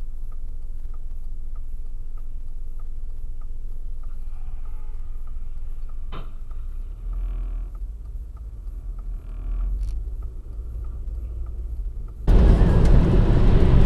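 Low, steady rumble of a car on the road, with a faint regular ticking about twice a second. About twelve seconds in, the noise turns suddenly much louder and rougher.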